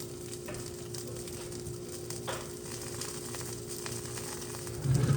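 Sausage, mushrooms and cherry tomatoes sizzling in a hot frying pan, with small crackles and pops over a steady hum. A louder low thud comes near the end.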